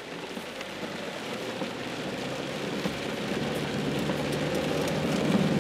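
Car driving in the rain on a wet road, heard from inside the cabin: a steady hiss of rain and tyre spray over the low hum of the engine, growing a little louder towards the end.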